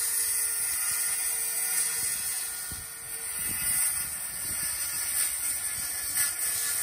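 Cordless circular saw running steadily as it cuts along a sheet of OSB, a continuous high-pitched cutting noise.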